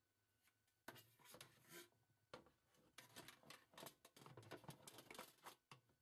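Plastic filter of a Miele dishwasher being handled in the sump of its stainless-steel tub. A run of scrapes, clicks and rattles starts about a second in and stops just before the end.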